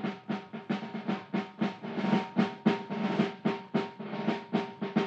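Radio-drama music bridge: a steady percussive beat of about four strokes a second under a held chord, swelling in.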